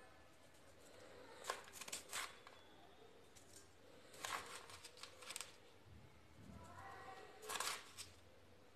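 Plastic spoon scooping and scraping powdered sugar in a plastic bowl, faint scrapes and taps in three short bursts, one for each spoonful.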